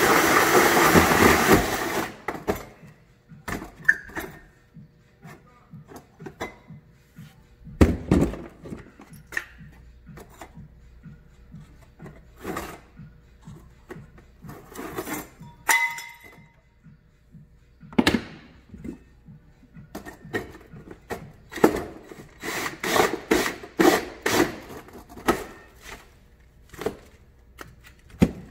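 A hand-held power tool runs loudly and cuts off about two seconds in. Then come scattered clicks, taps and knocks of hand work on the riveted aluminium skin of the truck sleeper, as the marker lights are worked out of their holes.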